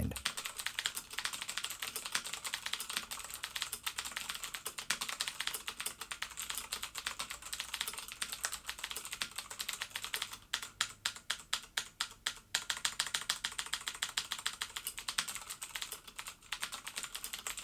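Typing on a RAKK Sinag tenkeyless mechanical keyboard with Cherry MX Blue switches: a steady stream of high-pitched clicky keystrokes, with a faster, louder flurry about ten seconds in.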